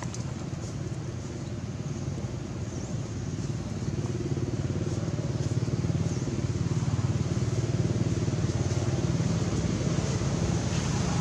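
Steady low engine drone, growing a little louder about five seconds in.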